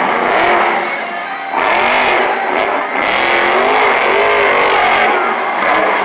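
Monster truck engine revving, its pitch rising and falling several times as the truck drives the dirt track.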